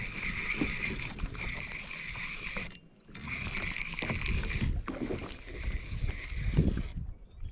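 Fishing reel being cranked in two bouts with a short pause between, its steady whir laid over low rumbling knocks and handling noise from the kayak as a bass is brought in.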